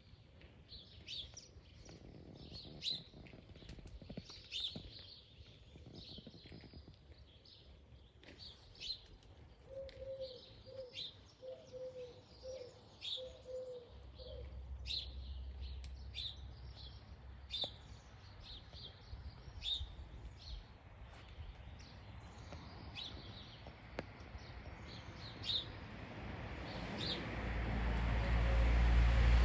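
Small birds chirping, with short high chirps repeating every second or so. About ten seconds in comes a run of eight or so lower notes in quick succession. A low rumble builds near the end.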